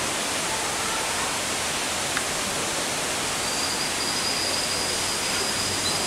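Steady, even rushing noise of the indoor rainforest exhibit, like falling water, with a faint thin high tone coming in about halfway through.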